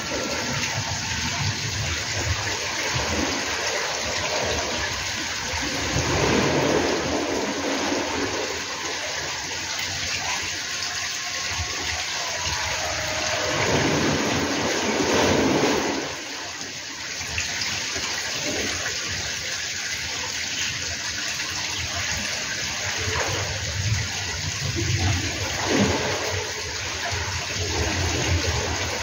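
Steady rushing noise of wind on the microphone, swelling in gusts and briefly easing about halfway through.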